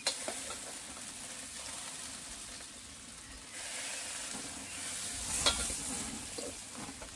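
Green asparagus with bacon and broccoli sizzling in pans on a gas grill, a steady frying hiss. A few sharp metal clinks, the loudest about five and a half seconds in.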